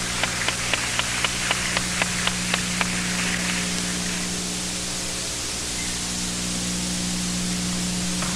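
Steady hiss and mains hum of an old videotape recording. A run of sharp, evenly spaced clicks, about four a second, stops about three seconds in.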